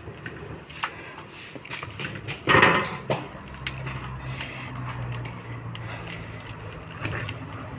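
Wooden spatula stirring and scraping glutinous rice through bubbling coconut-sugar syrup in a metal wok, with scattered knocks and a louder scrape about two and a half seconds in.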